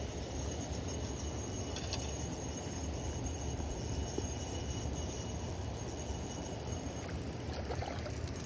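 A hooked trout splashing and thrashing at the surface near the end as it is brought to the landing net. Under it runs a steady low rumble and a faint steady high whine.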